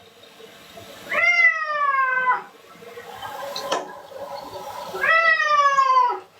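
Domestic cat meowing twice in protest while being bathed: two long, drawn-out meows a few seconds apart, each sliding slightly down in pitch. A single short click falls between them.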